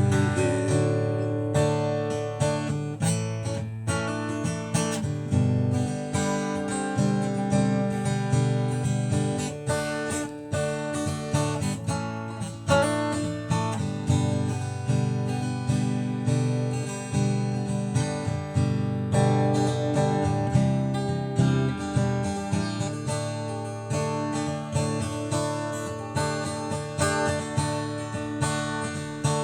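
Acoustic guitar strummed steadily in a purely instrumental passage, with no singing.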